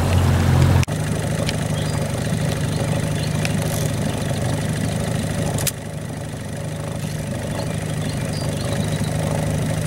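A boat motor running steadily at low speed. There is an abrupt shift in its level about a second in, and it drops quieter about halfway through.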